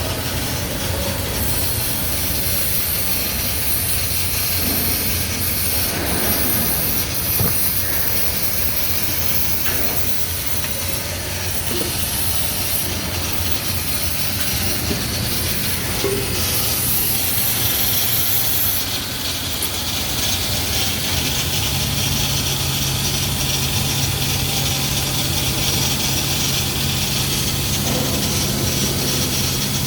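Electric welding arc on boiler tubes hissing steadily, over a constant low drone of plant machinery; the high hiss breaks off briefly a few times and fades about two-thirds of the way through.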